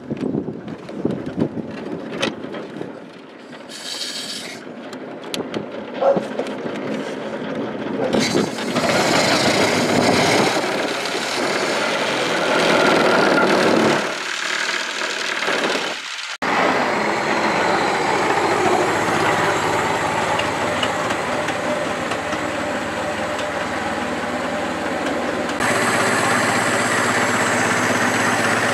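Freshly overhauled Ford Model T four-cylinder engine: scattered clicks and knocks for the first several seconds, then it catches and runs steadily, its fuel flowing again after a clogged sediment bowl was cleared. The running sound jumps abruptly twice where the recording is cut.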